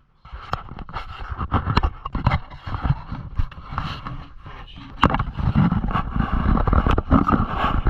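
Handling noise: scraping, rubbing and sharp knocks of things being moved and handled, muffled through a waterproof camera case, getting busier and louder about five seconds in.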